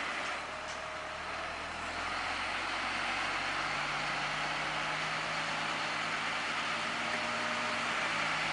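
A crane's engine running steadily under load, its note changing about three and a half seconds in.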